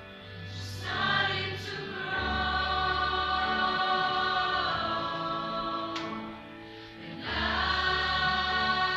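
A school choir singing in long held chords, with a short break between phrases about seven seconds in.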